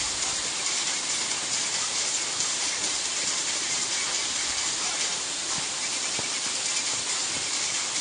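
Waterfall pouring into a partly frozen pool, a steady rushing hiss with no let-up.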